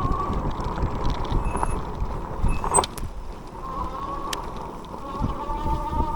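Riding an e-bike: its electric motor whines with a slightly wavering pitch under a low rumble of tyres and wind on the microphone. The whine fades out about two seconds in. A short clatter comes a little before three seconds in, and the whine picks up again near four seconds.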